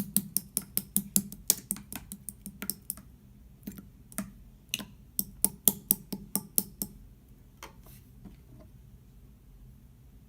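A rapid run of sharp clicks, about four or five a second for three seconds, then sparser clicks that stop about seven seconds in.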